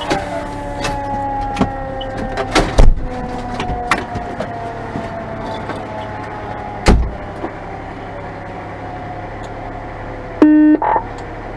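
Parked fire apparatus running, heard from inside the cab: a steady low hum under several thin tones that slide slowly downward, with a few sharp knocks. Near the end comes a short, loud, buzzy tone, blown twice.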